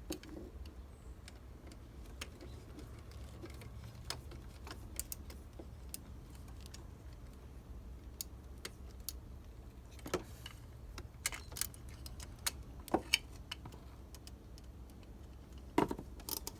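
Scattered small metallic clicks and clinks of a 5/16 socket ratchet and battery-terminal clamp hardware as the clamp nuts are tightened, irregular and a second or more apart, with a quick cluster near the end. A low steady hum runs underneath.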